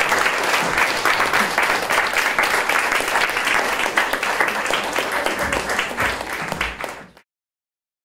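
An audience applauding, many hands clapping together. The applause cuts off suddenly about seven seconds in.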